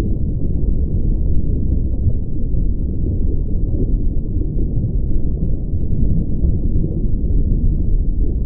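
A loud, steady, deep rumble of noise, with no tune, beat or pitch.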